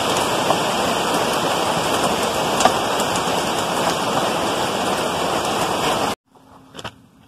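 Steady heavy rain falling, an even hiss with scattered drop ticks, cutting off suddenly about six seconds in.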